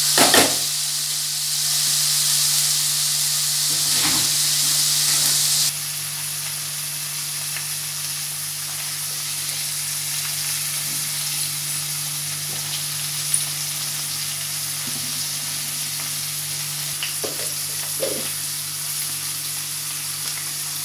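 Chopped chikkudukaya (flat beans) frying in oil in a pan, sizzling steadily, with a spatula scraping the pan as they are stirred near the start and again about four seconds in. The sizzle drops suddenly to a softer, even level about six seconds in.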